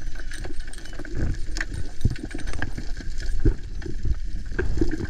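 Underwater sound through an action camera's housing while freediving: a low churning rumble of moving water, with many scattered sharp clicks and knocks.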